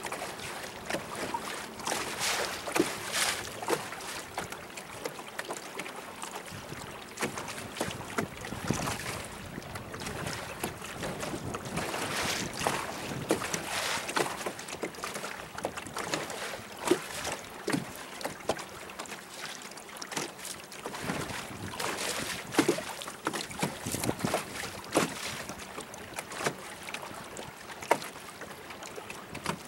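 Choppy lake water lapping and slapping against a small boat's hull in irregular splashes, with wind buffeting the microphone.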